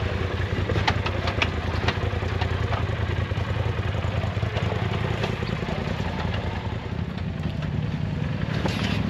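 Polaris RZR side-by-side engine running low and steady as the machine crawls over rock ledges, with a few sharp knocks and clatter from the chassis and tyres on the rock about a second in.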